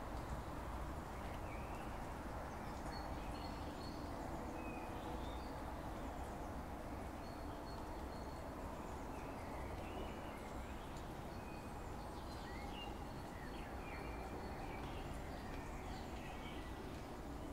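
Birds chirping and calling in short, scattered notes over a steady background noise outdoors. No thunder is heard.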